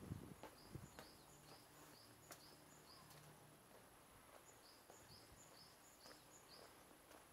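Quiet outdoor ambience: a small bird repeating a short high note about three times a second, in two runs with a pause between, over faint, evenly spaced footsteps on a stone path.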